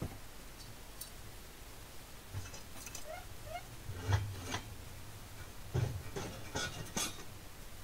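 Small sheet-steel repair patch being handled against a bench vise and angle-iron folder: scattered light metal clinks and taps, a little louder around four and six seconds in.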